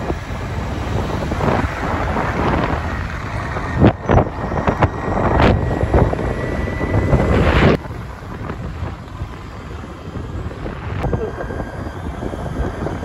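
Wind buffeting the microphone, with road noise, while riding an Ather 450X electric scooter at about 50 km/h. The wind noise drops off suddenly about eight seconds in.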